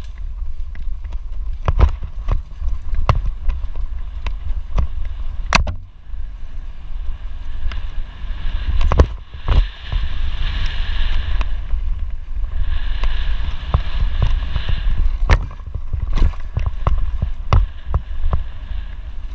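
Mountain e-bike ridden fast over a rough dirt trail: wind rumbling on the camera microphone, with frequent sharp knocks and rattles as the bike hits bumps. A higher whirring sound comes in twice near the middle.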